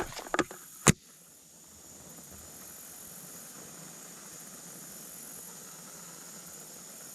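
Waterproof matches scraped against a striker a few times in the first second, the last stroke the loudest, followed by a steady faint hiss.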